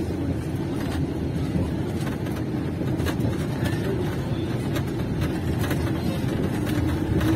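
Safari bus running along a rough dirt track, heard from on board: a steady engine and road rumble with a faint hum and scattered light knocks.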